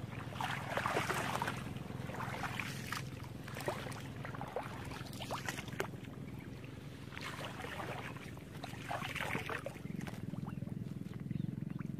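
A person wading through shallow muddy marsh water, splashing and sloshing in irregular bursts, over a steady low hum.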